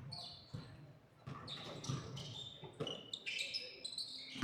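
Basketball bouncing on a court floor in an uneven string of dribbles, with short high sneaker squeaks in between.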